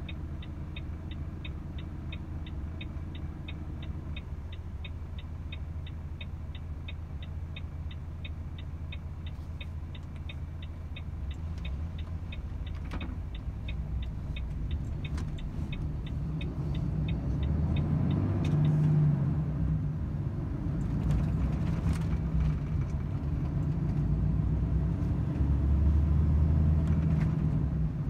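Volvo FH 500 truck's 13-litre six-cylinder diesel engine running, heard as a low rumble inside the cab, with an even, fast ticking typical of the turn indicator for the first two-thirds. The ticking then stops and the engine grows louder as the truck pulls away under load.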